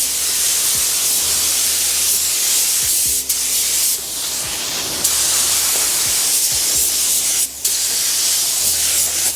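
Compressed-air paint spray gun hissing steadily as it sprays clear coat onto a car body, breaking off briefly twice, about a third of the way in and again about three-quarters in.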